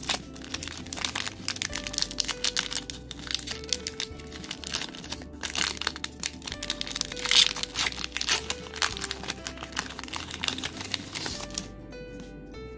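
Foil booster-pack wrapper crinkling and crackling as it is torn open and handled and the cards are slid out, in a dense irregular run that stops about a second before the end. Background music plays throughout.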